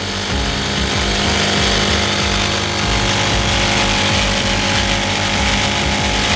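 Nitron NT-9817H-0D4 single-needle, needle-feed industrial sewing machine running steadily, with no separate stitch strokes to be heard.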